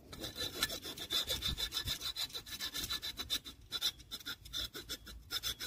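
Hand file scraping quickly back and forth over the friction surface of an Aixam microcar's disc brake pad, many short strokes in a steady rhythm, filing off the glazed layer of the pad.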